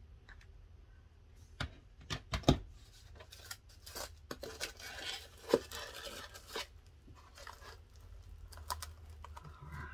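Hands handling a plastic-wrapped floral foam log in a small wooden crate: a few sharp taps and knocks about two seconds in, then several seconds of rustling and scraping, with light clicks near the end.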